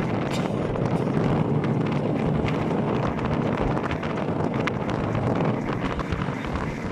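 Steady rumble of a vehicle travelling on the road, with wind noise on the microphone and a few faint clicks.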